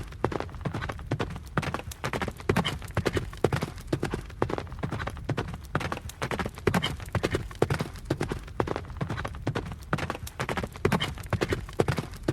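A running horse's hooves striking the ground in a rapid, continuous run of hoofbeats. The same pattern of strikes recurs about every four seconds.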